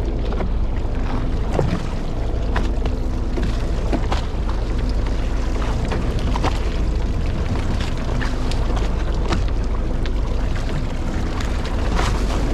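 A fishing boat's engine runs with a steady low rumble, with water splashing along the hull and scattered small clicks.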